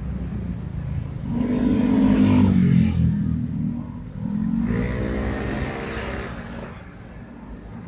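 Motor vehicle engines passing close by twice, about a second and a half in and again near four and a half seconds, their pitch rising as they accelerate, over a steady low rumble.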